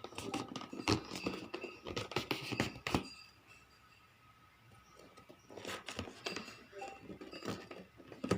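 Irregular clicks, knocks and rustles of a keyboard and its packaging being handled, with a quieter stretch in the middle.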